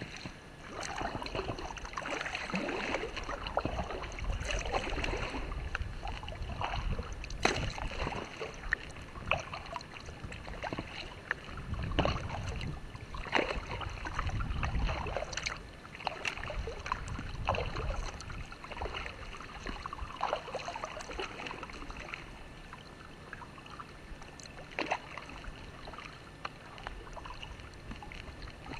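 Kayak being paddled: water splashing and dripping around the paddle and hull, with many small irregular splashes and knocks. The splashing is busier at first and calmer in the last third.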